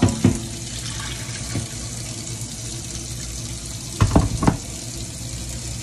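Kitchen faucet running steadily into a stainless steel sink. A few short knocks come once near the start and in a quick cluster about four seconds in, as the rinsed turkey necks and bowls are handled.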